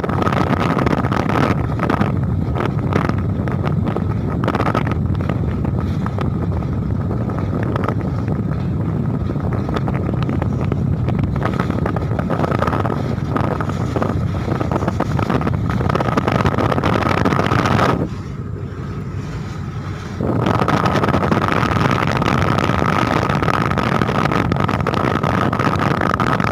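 A car ferry's engines running with a steady low rumble and a whine as the ship docks, with wind buffeting the microphone. About eighteen seconds in, the sound briefly drops and goes dull for two seconds, then returns.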